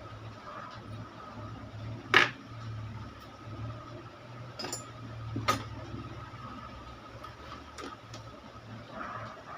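A few sharp clicks and knocks of hand tools against metal parts while a shorted bridge rectifier is being replaced in a power amplifier, the loudest about two seconds in. A steady low hum runs underneath.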